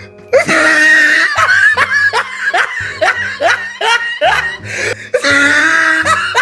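A person laughing in a quick run of short rising 'ha' sounds, about three a second, over background music with a steady beat.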